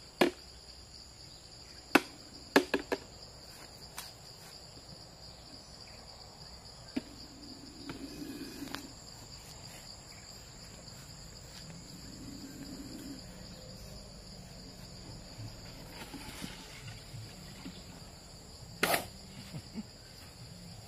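Steady high-pitched chirring of insects, with sharp clicks and knocks of plastic jars being handled: several in the first few seconds and a louder one near the end.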